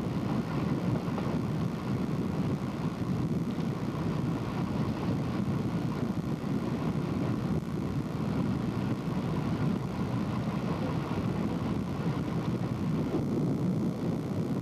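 Steady low rumble of a vehicle in motion, with no separate events standing out.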